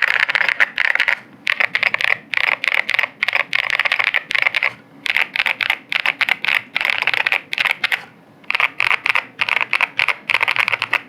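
Fast typing on a zenzo ZKB104 HiFi gasket-mount mechanical keyboard with linear 'Princess' switches and a PC plate: a dense stream of keystroke clacks in runs, with a short pause about eight seconds in.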